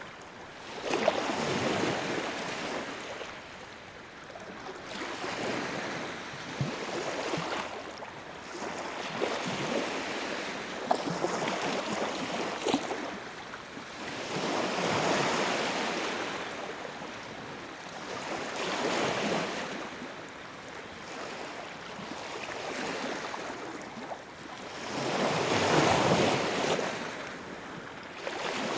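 Sea waves surging and ebbing in repeated swells every few seconds, with the loudest swell near the end.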